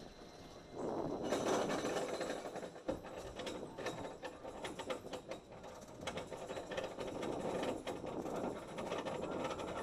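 Roller coaster train engaging and climbing the chain lift hill, starting about a second in: the lift chain rattles and the anti-rollback dogs click in a rapid, steady run.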